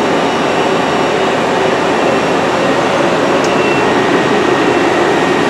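Steady drone of a running Citizen M20 CNC Swiss-type lathe and its auxiliary equipment, a mix of noise with a low hum and faint high whine. The gang tool slide's own travel is too quiet to pick out: the slides are super quiet.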